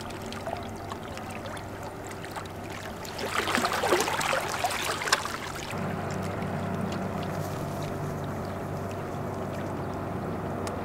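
Steady low engine drone, with a louder stretch of rough rustling noise about three to five seconds in and a deeper hum joining about six seconds in.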